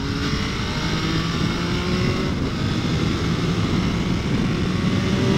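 MV Agusta motorcycle engine running under way, its note rising slowly as it pulls, with wind rush on the rider's microphone.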